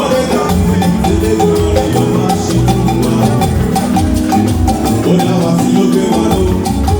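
Upbeat live church music: a bass line and held notes over a steady beat of shakers and percussion.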